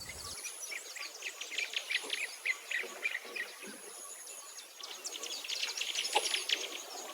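Birds chirping in many quick, short calls, with a thin high insect buzz that comes and goes.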